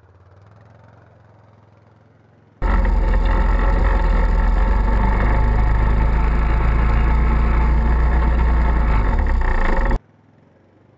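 A Yamaha Grizzly ATV fording a creek. It is faint at first, then suddenly loud and close from about two and a half seconds in: its engine runs among rushing, splashing water for about seven seconds before the sound drops back to faint near the end.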